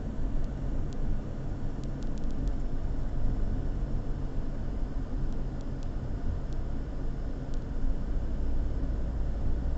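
Steady low rumble of a moving car's engine and road noise, at an even level throughout.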